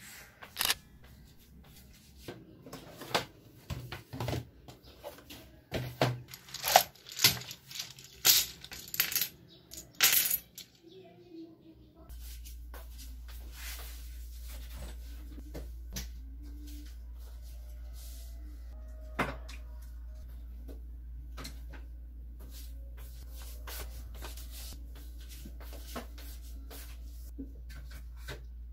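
Sharp clinks and knocks of small hard objects being handled, many in quick succession through roughly the first ten seconds, then a steady low hum with a few faint clicks.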